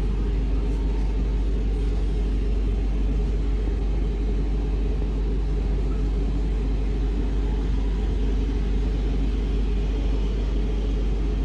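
Steady low rumble of a Class 323 electric multiple unit running on the rails, heard from inside the passenger saloon.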